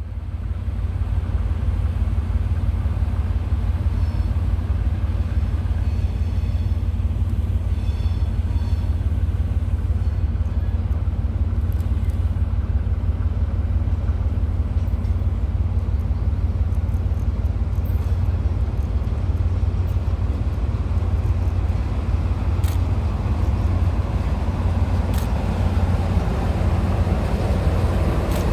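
Diesel shunting locomotive running with a steady low rumble; its engine sound fills out as the locomotive draws close near the end.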